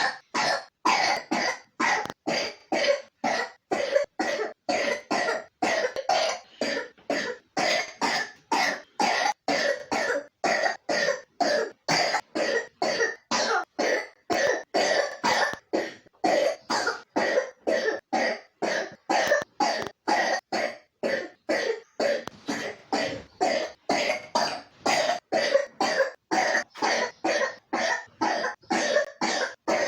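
A three-year-old with pneumonia coughing: short, rapid coughs following one another about two to three a second, without a break.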